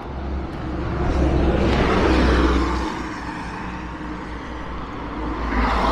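Road traffic: a car passing close by, swelling to its loudest about two seconds in and fading, then another vehicle approaching near the end.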